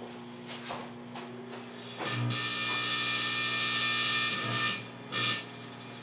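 Microwave oven running with a steady hum, a butane lighter inside it. About two seconds in, a loud buzzing hiss starts as the lighter begins to glow, lasting about two and a half seconds, with a shorter burst about five seconds in.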